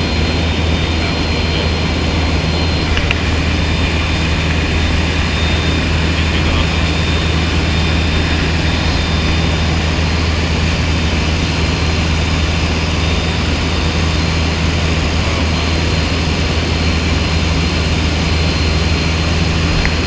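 Aircraft engine running in a steady, unchanging drone, with a constant low hum under a wide rushing noise.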